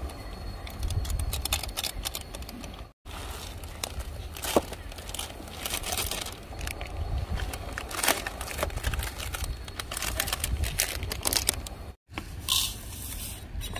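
Foil and plastic instant-noodle packets crinkling and crackling in hand as a soup-base sachet is squeezed out and the noodles are emptied into a pot of boiling water.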